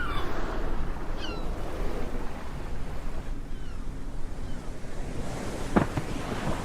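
Sea surf washing steadily, with wind on the microphone. A few short high falling calls come through the wash, and one brief sudden burst of noise is heard near the end.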